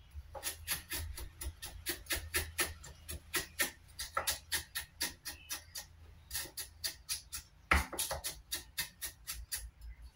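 Cleaver chopping on a wooden cutting board in quick, even strikes, about four to five a second, with one harder strike a little past the middle, mincing black beans and aromatics.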